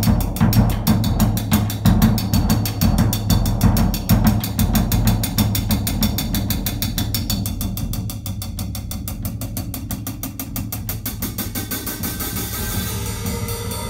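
Two drum kits played together in a steady groove, with quick, evenly spaced stick strokes over bass drum and toms. The playing drops softer about halfway through and builds again near the end.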